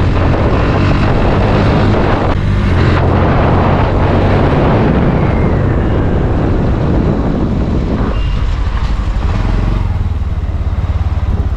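Bajaj Pulsar NS single-cylinder motorcycle engine running under way on a ride after its service, with heavy wind rush over it. The rush eases about eight seconds in while the engine note carries on.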